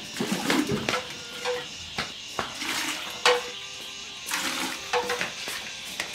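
Short clatters and knocks of a metal pot and utensils being handled, with splashes of water.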